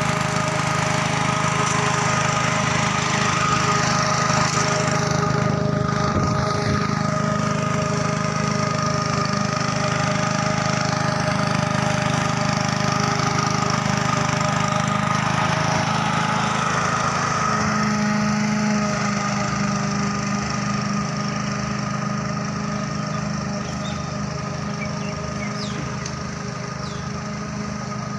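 Petrol engine of a red Pro Cut walk-behind lawn mower running steadily while it is pushed across grass, mowing. It grows a little quieter over the last several seconds as the mower moves away.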